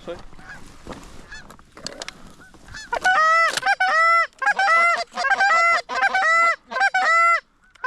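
Canada goose call blown close by, giving a fast, regular run of loud honks, about two a second. The calling begins about three seconds in and stops abruptly near the end. Before it, fainter honks can be heard.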